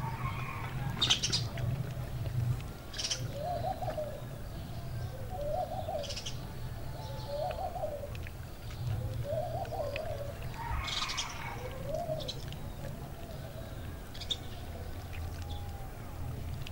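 A dove cooing, a run of about six short coos roughly a second apart, over a low steady hum. A few brief wet, crackly handling sounds come from hands working a spice marinade into a raw whole chicken; the loudest is about a second in.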